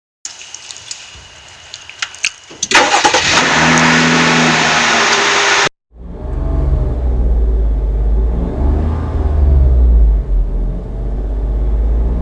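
A car engine starting, loud and noisy with clicks, then after an abrupt cut a car running with a low, steady rumble.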